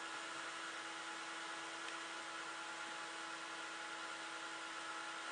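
Cooling fans of an open-case desktop PC running: a steady whir with a faint constant hum.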